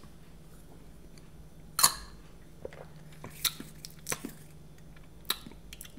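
Close-miked drinking sounds: a man gulping down a small shot cup of drink and a boy sipping through a straw, heard as a few short swallows, sips and lip smacks, the loudest about two seconds in.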